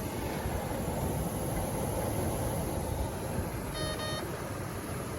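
Volkswagen Golf 7 heater blower fan, removed from its housing, running steadily with a constant rush of air. Two short electronic beeps sound about four seconds in.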